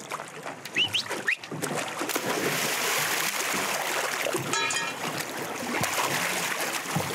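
Sea water splashing and rushing as a dog swims in choppy water beside a boat and is hauled aboard. A few short rising squeaks come in the first second or so.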